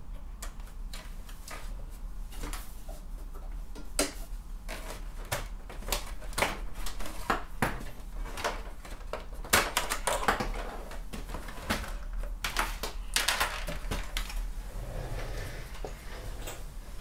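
Irregular clicks, knocks and light rattles of computer cables and plugs being handled and unplugged on a desk, over a steady low hum.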